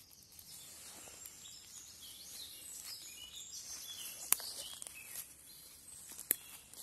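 Faint birdsong, high-pitched chirping calls. Two sharp clicks break in, about four seconds in and again near the end, the first the loudest sound.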